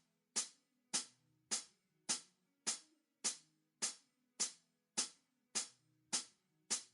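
Quiet music intro: a steady click, about one every 0.6 seconds, with faint low guitar notes held beneath it.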